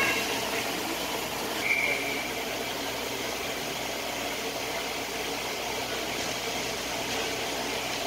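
Indoor ice rink ambience: a steady hum with the faint sounds of skates and sticks on the ice, and a brief high tone about two seconds in.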